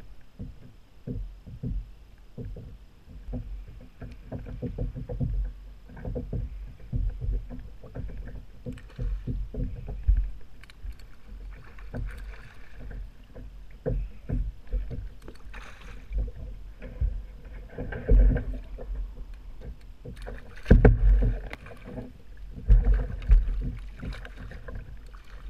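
Water lapping and irregular knocks and bumps on a fishing kayak's hull while a hooked fish is played on a bent rod, with a few louder moments midway and near the end.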